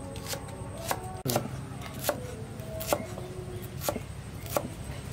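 A hand-forged steel knife chopping an onion against a wooden chopping block: about seven separate, fairly slow chops, each a sharp knock of the blade through the onion onto the wood.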